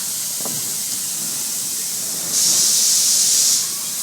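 Steady hissing factory noise from the trailer-panel laminating line, with a loud burst of high hissing for about a second midway.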